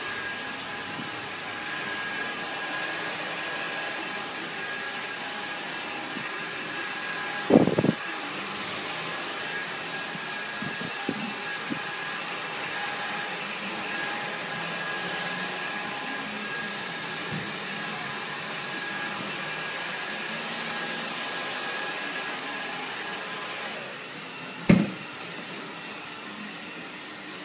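Handheld hair dryer blowing steadily with a thin whine, going quieter near the end as it is shut off. Two brief loud knocks, one about eight seconds in and one just after the dryer stops.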